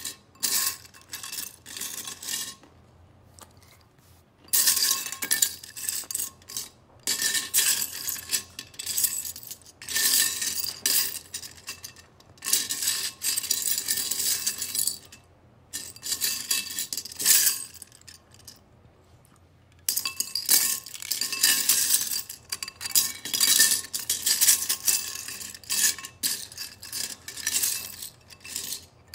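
Loose plastic Lego pieces clattering against each other and a ceramic bowl as a hand sifts through them for the next part, in bursts of a few seconds with short pauses between.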